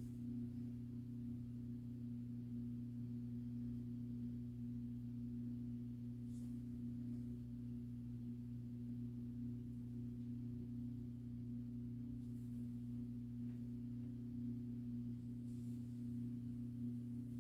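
A steady low drone of several sustained tones that holds unchanged throughout, with a few faint soft rustles now and then.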